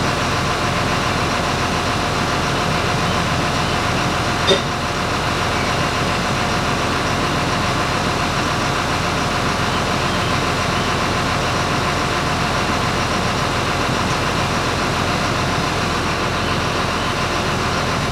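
An engine running steadily at a constant speed, with one sharp click about four and a half seconds in. It shuts off at the end, dying away over about a second.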